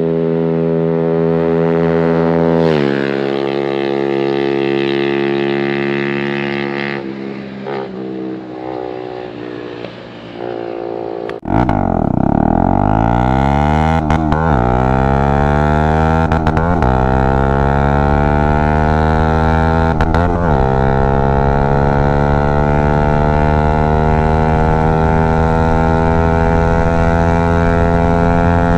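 Bajaj Dominar 250's single-cylinder engine running with its exhaust muffler removed, giving a loud open exhaust note. It holds a steady pitch, drops about three seconds in and fades. About eleven seconds in it comes back loud and climbs in pitch in several steps with short breaks between them.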